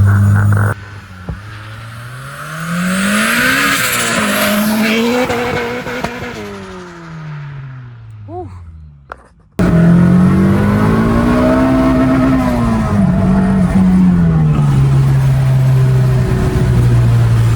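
Turbocharged Honda B18C four-cylinder in a 1992 Civic hatch being driven hard in several cut-together clips: the engine note climbs under acceleration with a rushing hiss at the top of the first pull, then falls away as it eases off. After a short break about nine and a half seconds in, a loud engine note rises, drops and settles into a steady drone.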